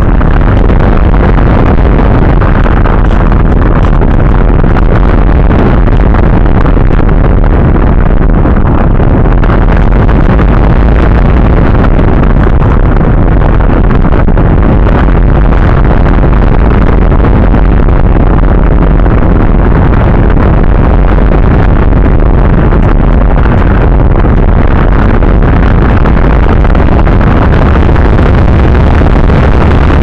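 Loud, steady wind rush and buffeting on the microphone of a small camera riding on an AXN Floater Jet RC foam plane in flight in strong wind, a dense low rumble with no clear motor tone.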